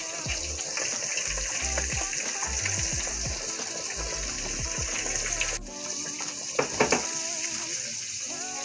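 Seasoned, flour-dredged fish fillets deep-frying in an electric basket fryer: hot oil bubbling and sizzling steadily, under background music.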